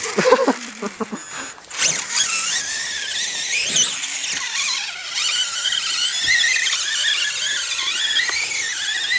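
Electric RC off-road model car running on a 6S LiPo pack: its motor whines at high pitch, swooping up and down repeatedly as the throttle is worked, starting about two seconds in.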